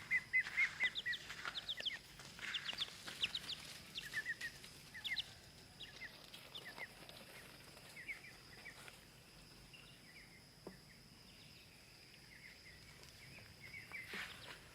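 Young chicks peeping: quick, high cheeps crowded together over the first couple of seconds, then more scattered and fainter, dying away over the latter half.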